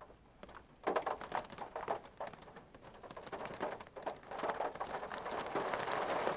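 Rain pattering on the parked car, starting abruptly about a second in as a dense spatter of drops and growing heavier towards the end.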